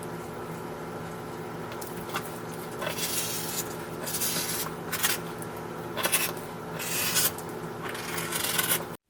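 Plaid flannel fabric being cut, a crisp shearing stroke about once a second, six strokes in all starting about three seconds in, over a low steady hum.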